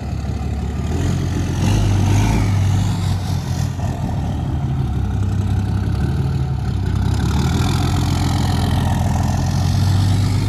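Diesel engine of a 2012 Ram 2500 running with a steady low hum, getting louder about a second in and again near the end. The engine is a 6.7-litre Cummins inline-six.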